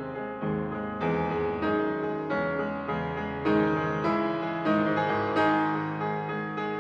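Background music: a piano playing slow, gentle chords, a new note or chord struck about every half second to second.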